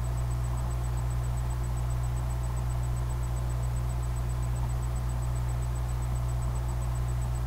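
A steady low hum with a faint hiss above it, joined by a faint high tone pulsing evenly.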